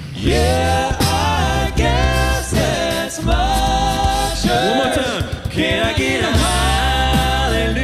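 An a cappella vocal group singing in close harmony with no instruments, a deep bass voice underneath. The sung chords break off briefly twice.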